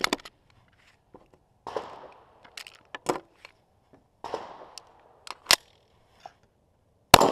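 Sharp metallic clicks and clacks of a semi-automatic pistol being handled, with two short scraping sounds of the slide being worked. A loud pistol shot comes right at the end.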